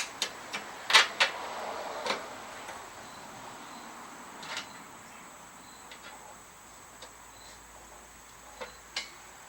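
Metal clicks and clanks as steel skid shoes and their carriage bolts are handled and fitted into the slots of a snowblower's auger housing. A quick cluster comes in the first two seconds, the loudest knock about a second in, then a few scattered clicks.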